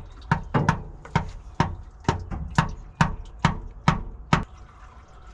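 A run of about ten sharp knocks, a little over two a second, stopping about four and a half seconds in.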